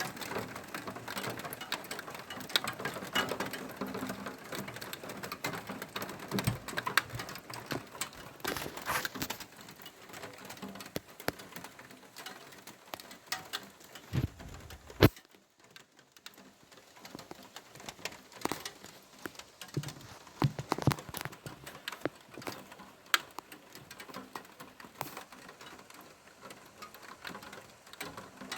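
Rain pattering during a thunderstorm, as a dense stream of drops ticking close to the microphone. About halfway through there is a short low thud, ending in one sharp loud crack.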